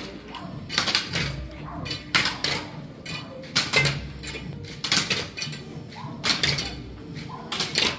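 Footsteps and the carriers' staffs knocking on cobblestones as a procession walks: sharp, irregular clacks, about one or two a second.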